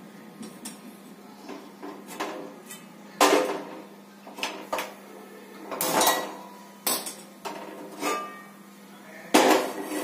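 Metal clanks and knocks of a flat tawa griddle being shifted on and off the pan supports of a stainless steel gas stove while the burner is lit, about four loud clanks among smaller knocks.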